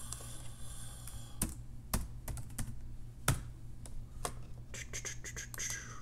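Laptop keyboard keys pressed in scattered, irregular clicks, with a quicker run of keystrokes about five seconds in.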